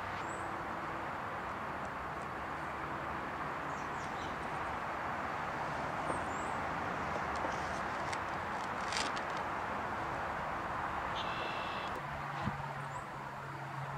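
Steady outdoor hiss with a few faint bird chirps, and light clicks from the wooden mold flask being handled as its halves are separated.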